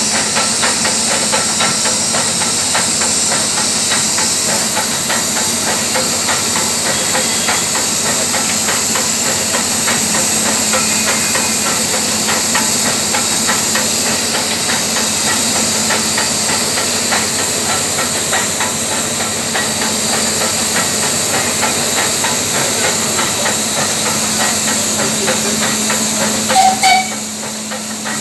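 Standing steam locomotive hissing steadily as steam escapes around its cylinders and valve gear, with fast rapid ticking and a low steady hum underneath. A brief louder knock comes about a second before the end, after which the hiss drops a little.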